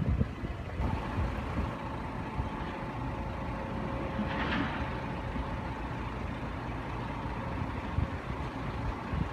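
Train in a railway depot: a low rumble with a steady electrical hum that starts about a second in, and a short burst of air hiss about halfway through.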